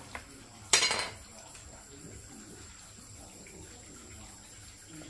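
Faint water running or being handled, with a sharp click just after the start and a short, louder splash-like noise about a second in.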